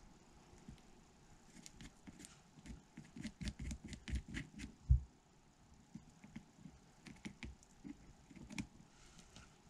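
Light clicks and taps of small hard objects being handled, thickest between about three and five seconds in, with one louder knock near the five-second mark.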